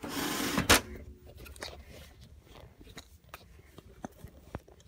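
A brief rustle, then faint scattered clicks and taps from handling a plastic toy wrestling ring while stickers are put on its side.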